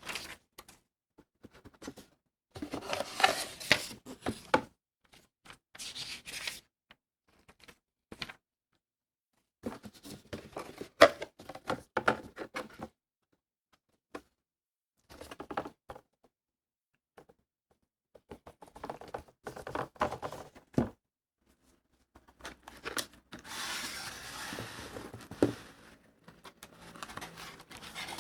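Unboxing handling sounds: cardboard and plastic packaging rubbed, torn and set down, in several separate bursts with sharp knocks, the longest and densest about 23 seconds in.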